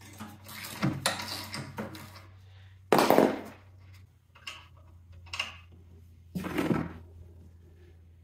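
Wrench and hand-handling noises at a snowblower's oil drain plug: scattered clinks and rustles, the loudest a short scraping burst about three seconds in and another about six and a half seconds in, over a steady low hum.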